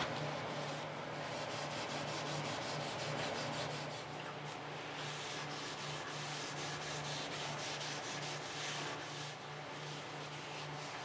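Hand sanding of a wood surface: sandpaper rubbed back and forth in a steady run of repeated strokes.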